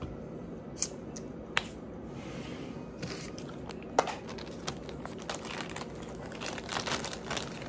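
Handling noise as a container of Gunny Glide lubricant is opened: a few sharp clicks spread out in time, a brief crinkling rustle, then a run of small crackles and ticks near the end.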